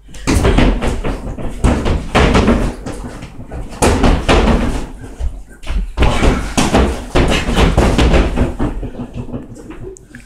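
Fists landing on a duct-taped free-standing punching bag in fast flurries of heavy thuds, with brief pauses between flurries, easing off near the end.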